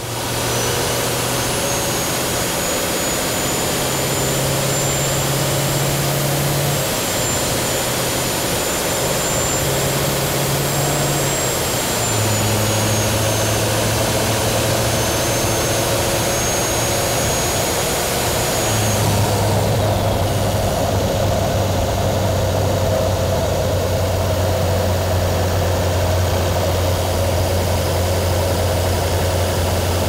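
LML Duramax 6.6 L V8 turbo diesel with a Stealth 64 turbocharger running, a high, steady turbo whistle over the engine. About two-thirds of the way through, the whistle falls in pitch and fades away, leaving the engine running alone.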